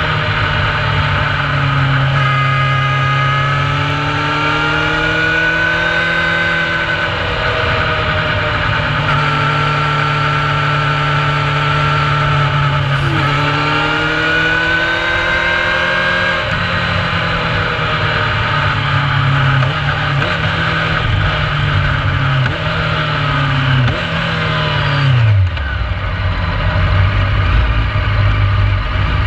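Onboard sound of a carburettor-fed Honda CBR600 F4's inline-four engine at moderate revs, its note rising and falling in pitch with the throttle, over wind rush. About 25 seconds in, the revs fall away sharply and settle to a low, steady idle.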